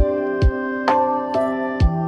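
Background music: a gentle instrumental track with held keyboard chords that change every second or so over a beat of low thumps.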